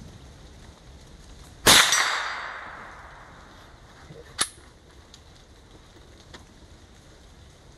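A single shot from a Keystone Crickett .22 LR single-shot bolt-action rifle, about a second and a half in, with a tail that dies away over about a second. A short, much quieter sharp click follows a few seconds later.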